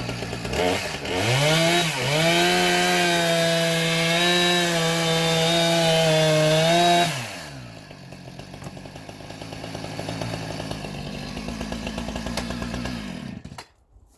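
Gas chainsaw revving up to full throttle and holding there for about five seconds. It then drops back to a low idle and shuts off near the end.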